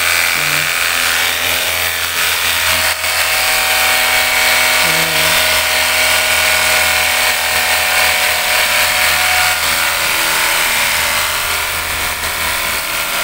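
Cordless 24-volt battery pressure-washer gun running steadily: the electric pump motor's hum under the hiss of a strong high-pressure water jet spraying onto a scooter's plastic panels and engine.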